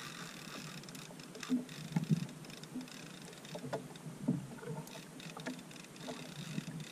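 A small wooden outrigger boat drifting on calm water: a light wash of water against the hull with scattered small knocks and creaks.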